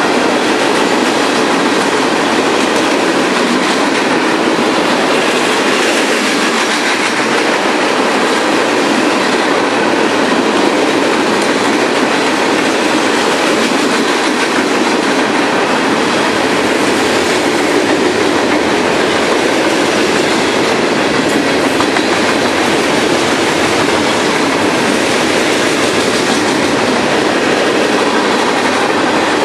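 Freight train cars rolling past close by: a loud, steady clatter of steel wheels on the rails that does not let up.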